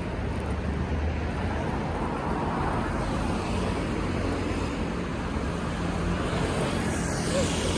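Steady road traffic noise, with a continuous low hum under it.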